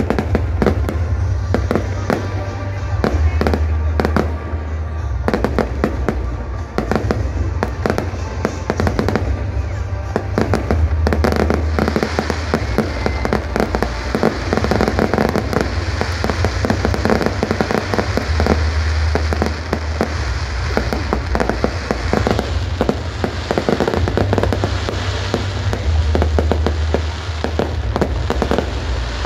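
Aerial fireworks display: a continuous run of rapid bangs and crackling from shells bursting, over a deep low rumble that swells and fades every few seconds.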